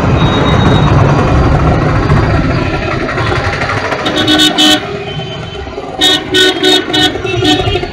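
Busy Indian street traffic with an engine running, then vehicle horns honking in short beeps: two about four seconds in, then a quick run of about five starting around six seconds in.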